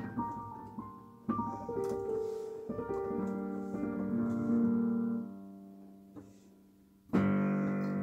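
Piano played slowly: chords are struck about one and three seconds in and left to ring and fade away, then a loud new chord comes in about seven seconds in.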